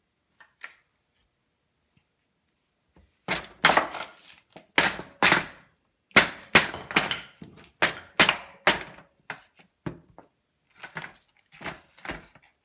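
Melamine mold sides being knocked and ripped off a cured epoxy-and-wood blank: clusters of sharp knocks and cracks that start about three seconds in and come in quick runs with short pauses.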